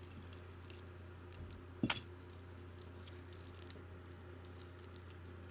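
Small metal jewelry pieces jingling and clinking as they are handled and sorted, with one sharper clack about two seconds in.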